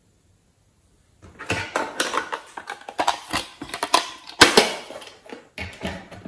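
Hard plastic clicking and scraping as a makeup tube is rubbed and knocked inside a plastic cosmetics case: a dense run of irregular clicks starting about a second in, with a shorter cluster near the end.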